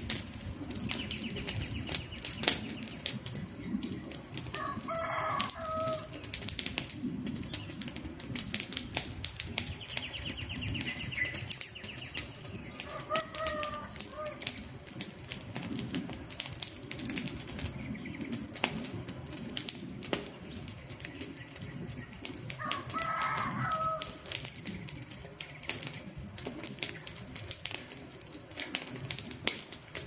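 Wood campfire crackling, with dense irregular pops and snaps over the low rush of the flames. A bird gives a short call three times, several seconds apart, and a quick high trill is heard twice.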